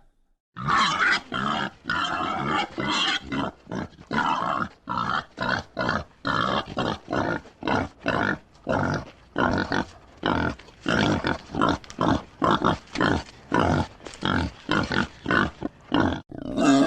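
Wild boar grunting in a long run of short calls, about two a second, starting about half a second in.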